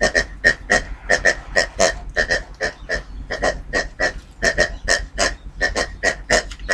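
Squeaky pig toy squeezed over and over, giving short squeaks in a steady rhythm of about four a second.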